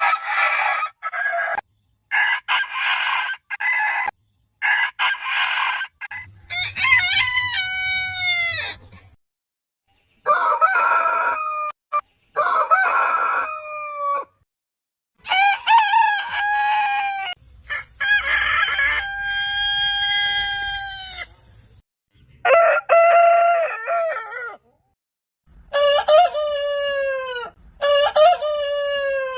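Roosters crowing: about five long cock-a-doodle-doo crows, each trailing down in pitch at the end, after a run of short repeated clucking calls in the first few seconds. The calls are separated by abrupt cuts to silence.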